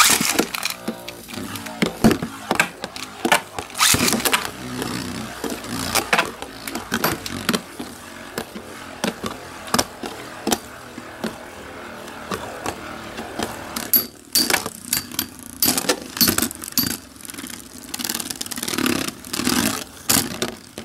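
Two Beyblade spinning tops launched with a string launcher into a clear plastic stadium, whirring and clashing, with many sharp clacks as they strike each other and the stadium wall. There is a brief lull past the middle before the clashing resumes.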